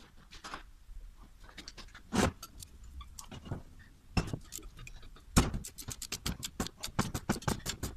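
Ratcheting wrench clicking as it works a bolt on a Toyota Hilux D4D turbocharger's turbine housing, with two louder metal knocks about two and four seconds in, then a quicker run of clicks from about five seconds in.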